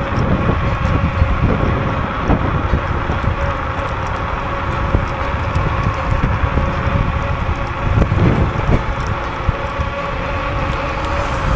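Electric scooter ridden at speed: wind rushing over the microphone and tyre noise on the road, with a faint steady whine. A brief louder rumble comes about eight seconds in.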